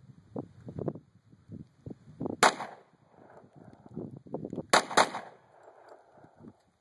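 Smith & Wesson M&P 40 pistol in .40 S&W firing three shots. The first comes about two and a half seconds in, then after about two seconds two more follow a quarter second apart, each trailing off briefly.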